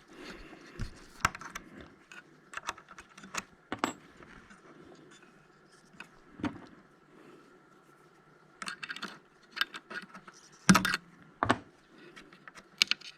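Irregular metallic clinks and taps of tools and small metal parts being handled, loudest in a cluster near the end, over a faint steady hum.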